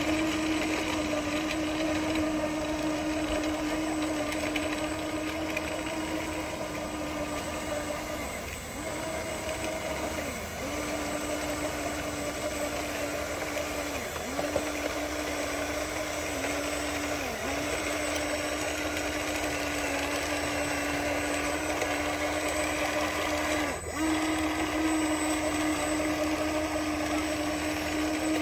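Radio-controlled Komatsu model bulldozer's electric drive whining steadily as it pushes mud, with the pitch dipping briefly about six times as the motors ease off or take load.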